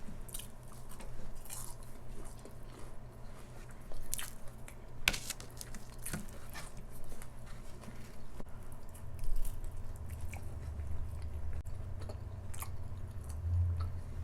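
A person biting and chewing food close to the microphone, with scattered crisp crunches as she eats, one sharper crunch about five seconds in.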